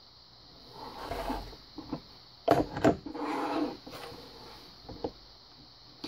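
Hard objects handled and set down on a wooden tabletop: a rustle, two sharp clacks in quick succession, a short scraping slide, and a lighter knock near the end.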